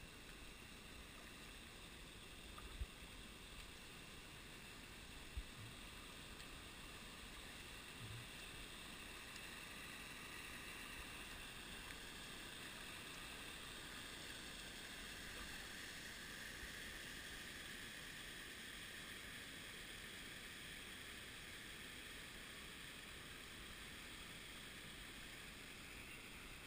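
Faint, steady rush of creek water from a small waterfall spilling over rocks, growing a little louder partway through as it comes near. A few light knocks sound in the first several seconds.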